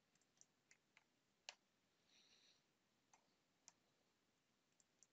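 Near silence with scattered faint clicks at irregular intervals, the loudest about a second and a half in.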